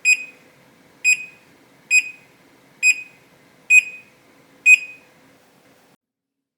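A series of six short, high electronic beeps, evenly spaced a little under a second apart, each fading quickly; they stop after the sixth.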